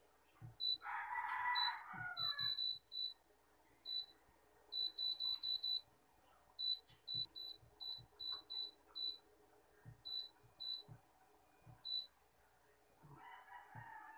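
Touch control panel of a Hannabishi air fryer beeping at each button press: about two dozen short, identical high beeps, several in quick runs, as the settings are stepped through. A cat meows about a second in and again near the end.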